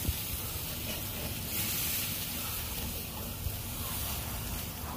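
Thick top sirloin steaks sizzling as they sear over the hot coals of a charcoal kettle grill while being turned with tongs; the sizzle swells briefly about a second and a half in.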